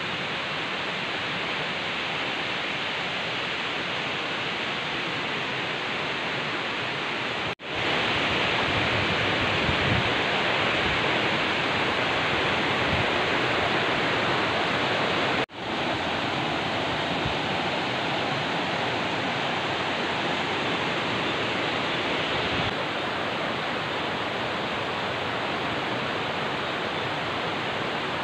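Steady rushing outdoor noise, even and without distinct events, broken by two abrupt cuts about 8 and 15 seconds in; the stretch between the cuts is a little louder.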